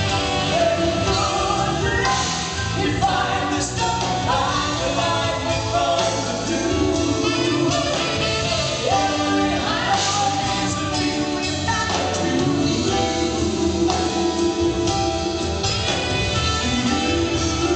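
Live rock band playing a slow power ballad, with drums and bass guitar under sung vocal lines shared by a male and a female singer.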